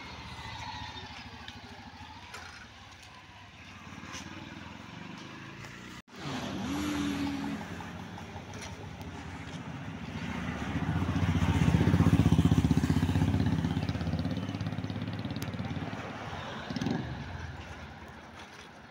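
Passing road traffic: an auto-rickshaw goes by close at the start, then a car approaches and passes close, its engine loudest about twelve seconds in before fading as it drives off.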